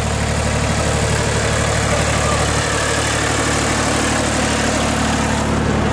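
Bulldozer engine idling steadily.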